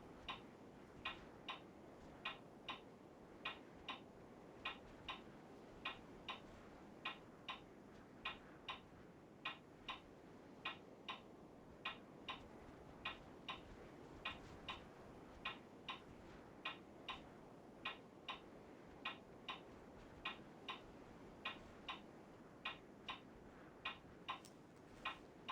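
Faint, regular light ticking in pairs: two sharp ticks about half a second apart, repeating a little more than once a second, over a low background hiss.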